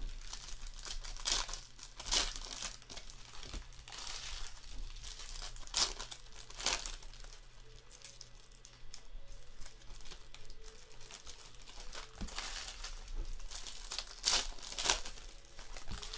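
Foil trading-card pack wrappers crinkling and tearing as packs are ripped open by hand, in irregular bursts with a quieter lull in the middle.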